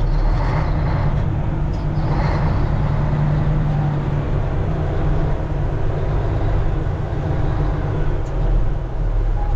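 Truck engine running steadily while the truck rolls along, heard from inside the cab as a low, even drone.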